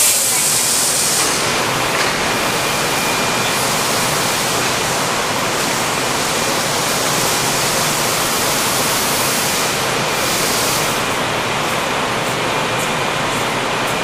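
Steady rushing noise of an underground subway platform with a train at it, with a short burst of hiss in the first second.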